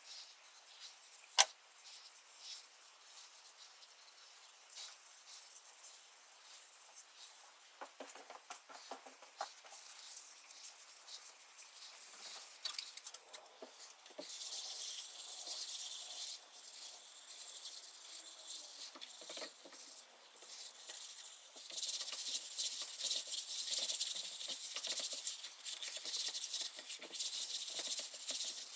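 A cloth rag rubbing wood stain into a carved wooden panel: a soft, scratchy rustle that comes in spells and is loudest in the second half. One sharp click about a second and a half in.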